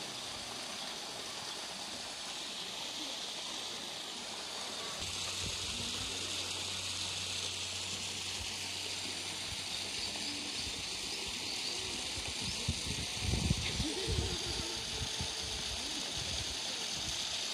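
Steady rush of running water, brightening about five seconds in, when a low steady hum joins it. From about twelve seconds in, irregular low thumps of wind buffeting the microphone.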